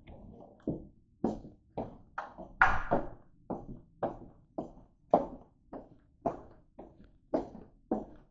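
Footsteps on a hard floor, walking at a steady pace of about two steps a second.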